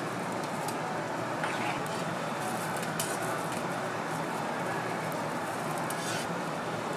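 Steady background noise of a street food stall, an even hiss with a few light clicks.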